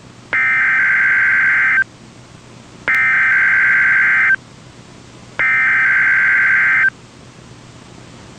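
NOAA Weather Radio's SAME (Specific Area Message Encoding) digital header for the Required Weekly Test: three identical bursts of data tones, each about a second and a half long with about a second of radio hiss between them.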